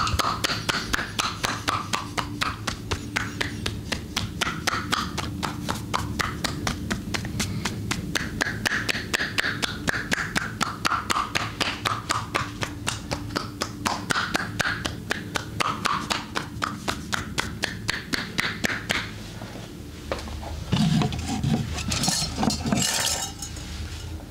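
Hands rapidly tapping and slapping on bare skin in percussive massage, an even rhythm of about five strokes a second. Near the end the tapping stops and a louder, fuller rubbing noise takes over for a couple of seconds.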